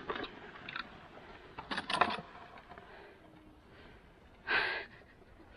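Scattered clicks and rattles, with a loud cluster of them about two seconds in, then a short breathy rush of noise near the end.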